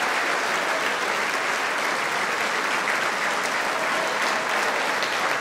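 A large audience applauding steadily after a stage acrobatics act.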